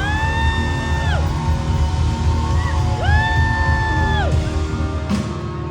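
Live indie band playing amplified in a hall, with two long held high notes of about a second each, the second one about three seconds after the first.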